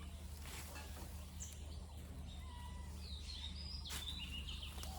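Birds calling in the surrounding forest: scattered short chirps and whistles over a steady low hum, with one sharp click about four seconds in.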